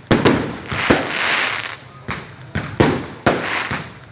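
Fireworks going off in quick succession: seven or eight sharp bangs, with a crackling hiss drawn out between them about a second in and again near the end.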